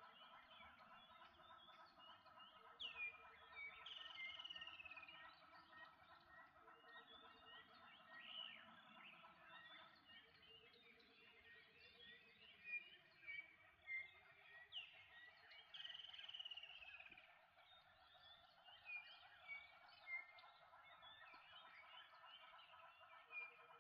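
Faint ambience of birds chirping and calling, with short rising and falling calls, over a steady background hum; the same run of calls comes round again about twelve seconds later.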